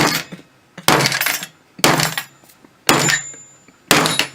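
Hammer blows, five strikes about one a second, each sharp with a short ring.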